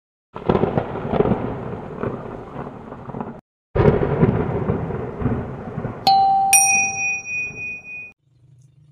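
Intro sound effects: a thunder crash that rumbles for about three seconds and cuts off suddenly, then a second thunder crash that rumbles on. About six seconds in, two bright bell dings of a notification chime ring out over it and fade.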